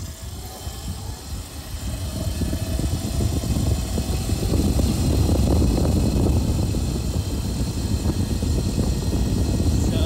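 Gusty wind rumbling on the microphone, growing over the first few seconds and then staying loud. Under it, the faint whine of a Razor electric dirt bike's stock 500 W brushed motor fades as the bike accelerates away.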